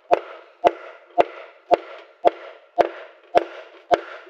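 Hammer striking a wooden board in a steady rhythm: eight sharp knocks, about two a second, each with a short rattling ring-out.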